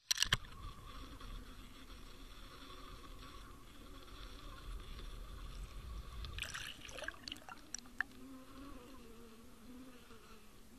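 A steady low buzzing hum picked up underwater, with a few sharp clicks and knocks at the very start and another cluster a little past halfway.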